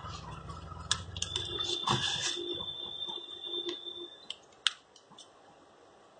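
Sharp, scattered small clicks and taps of plastic and metal parts as the inner cover of a Moto E4 Plus phone is fitted over its circuit board, with one loud click near the end. A faint steady high tone sounds for about three seconds in the middle.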